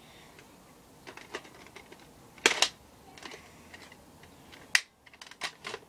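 Plastic clicks and clacks of a Nerf dart blaster being worked by hand: a few light clicks, then a sharp double clack about two and a half seconds in, another sharp click near five seconds, and a quick run of clicks near the end.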